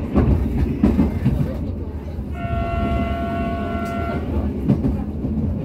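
Passenger train running, heard from inside a carriage: a steady low rumble with wheels clacking over rail joints in the first second or so, and a train horn sounding once as a steady chord for about two seconds in the middle.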